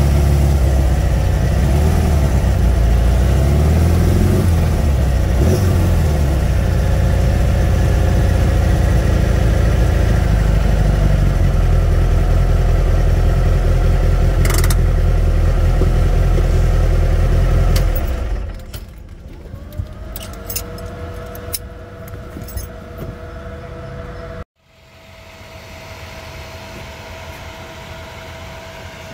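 Turbocharged air-cooled VW Beetle flat-four engine running loudly on the road, revs rising and falling a few times a few seconds in. About two-thirds of the way through the engine sound drops away to a much quieter steady hum with scattered clicks.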